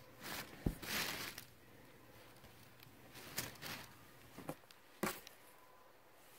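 Soft rustling of clothes and tissue paper being handled in a cardboard box: a few short rustles, with a light tap about two-thirds of a second in and another about five seconds in.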